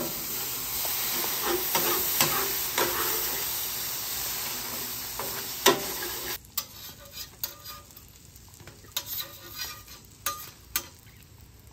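Water squirted onto a hot stainless steel griddle plate hisses and sizzles into steam while a metal spatula scrapes cooked-on residue off the steel. About six seconds in the hiss stops abruptly. Light taps and scrapes of the spatula on the bare steel follow.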